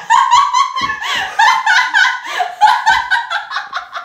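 Girls laughing hard: a fast run of short, high-pitched giggles that tails off near the end.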